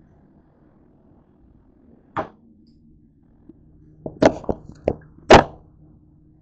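Sharp knocks and clunks of the camera being handled and set back down on a hard countertop: one knock about two seconds in, then a quick run of four or five knocks, the last and loudest near the end.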